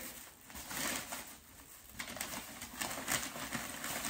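Shopping bag rustling and crinkling as items are pulled out of it, a dense run of small crackles that gets busier about halfway through.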